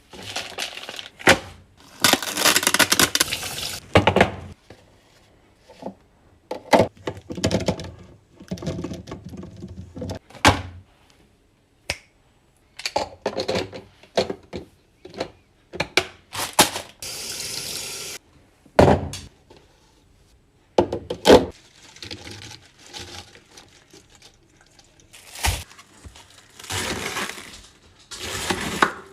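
Restocking handling sounds: a string of knocks, clicks and clatters as containers and packages are set down, with several stretches of rustling or pouring noise a second or two long.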